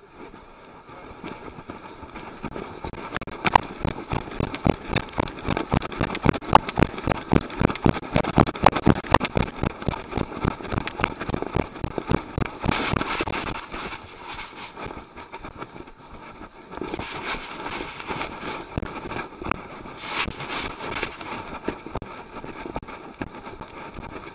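Action camera worn by a running dog, jolting with each stride: a fast run of rhythmic knocks and rumble, with two later stretches of hiss from wind or grass rubbing on the microphone.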